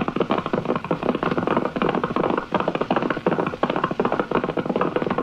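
Galloping horse hoofbeats sound effect: a rapid, continuous clatter of hoof strikes.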